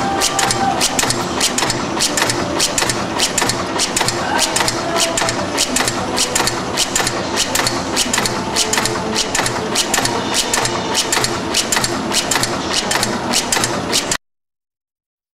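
Automatic laminating machine running, with a rapid, even clacking of about four strokes a second. The sound cuts off abruptly near the end.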